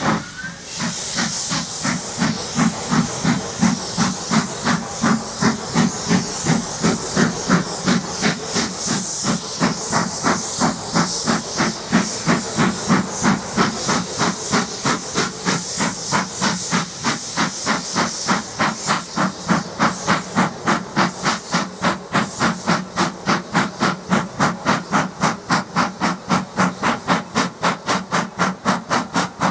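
Saddle-tank steam locomotive hauling a goods train, its exhaust beats coming evenly at about three a second. A steady hiss of escaping steam runs over the beats for the first two-thirds, then fades.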